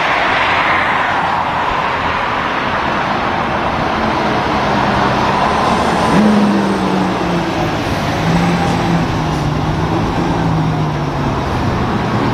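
Rear-loader garbage truck driving past on a busy road, its engine note rising about six seconds in and then dropping, over steady traffic and tyre noise.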